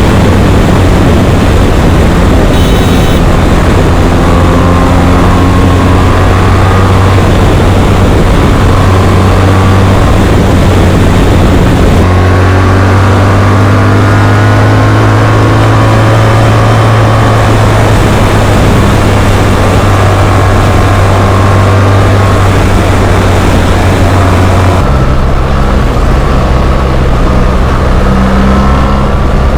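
BMW R 1300 GS boxer-twin engine running loudly through an SC Project Rally-X titanium slip-on exhaust, its note steady, with an abrupt change in pitch about twelve seconds in and again about twenty-five seconds in.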